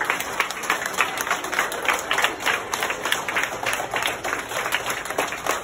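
Continuous applause from a crowd of children clapping their hands, many claps overlapping at an even level.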